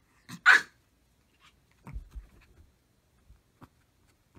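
A Maltese dog gives one sharp bark about half a second in, followed by some soft low thumps around two seconds in.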